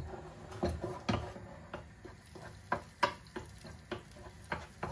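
A spoon stirring a tomato sauce in a pan, with a series of irregular knocks and scrapes against the pan and a faint sizzle.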